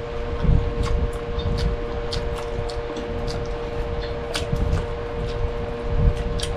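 Close-miked eating: chewing and mouth sounds with irregular sharp clicks, like utensils or fingers against plates, over a steady hum.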